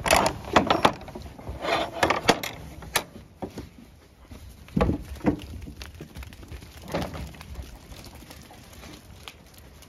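Wooden sheep-pen gate and its metal latch clattering and knocking as the gate is worked and sheep push through: a quick run of knocks in the first three seconds, then a few scattered thuds.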